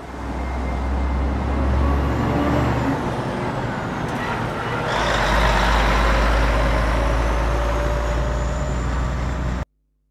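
Heavy truck running with a loud, noisy engine rumble. About five seconds in it gets louder and brighter, then it cuts off abruptly near the end.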